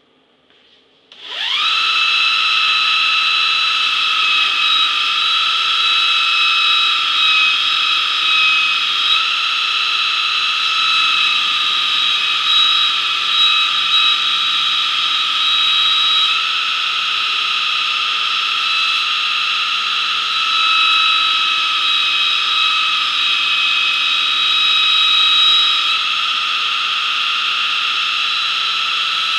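Bench belt grinder starting about a second in, then running with a steady high whine as a steel knife blade is pressed to the belt and ground to shape.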